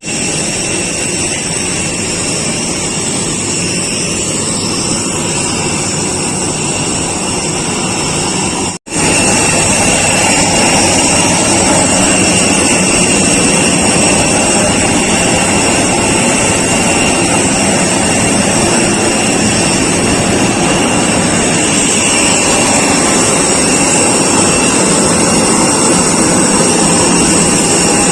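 Steady jet engine noise of an Airbus A320neo heard inside the cabin, a dense roar with a thin high whine over it. A sudden cut about nine seconds in, after which the noise is a little louder.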